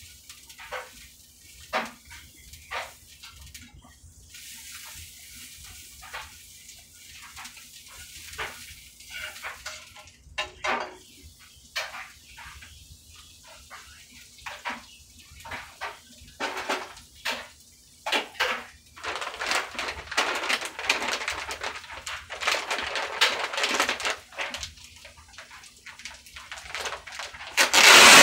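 Kitchen cooking sounds: scattered taps and clicks of a utensil against pans, then several seconds of steady scraping and stirring noise. Near the end a plastic bag crinkles loudly as it is handled.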